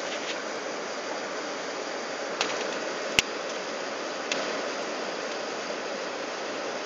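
Steady airliner cabin noise, air and engine noise inside an Airbus A380 descending to land, with one sharp click about three seconds in and a couple of fainter ticks.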